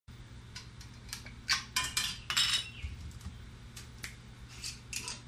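Glass jars and metal kitchen utensils clinking and clattering as they are handled at a kitchen sink, a series of sharp clinks with a quick, louder flurry about one and a half to two and a half seconds in.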